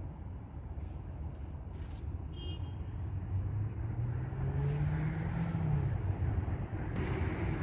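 Low, steady rumble of road traffic, with one car passing by: its engine note rises through the middle and then falls away.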